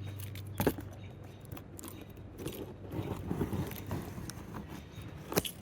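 Box packaging being opened and handled: rustling and scraping, broken by a few sharp clicks and knocks.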